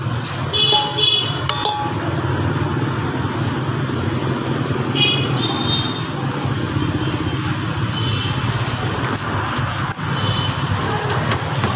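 Steady street background noise, a low rumble like passing traffic, with a few short high-pitched sounds now and then.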